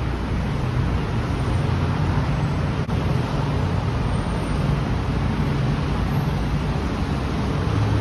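Dense road traffic in a jam: a steady hum of many car and motorcycle engines under a wash of road noise.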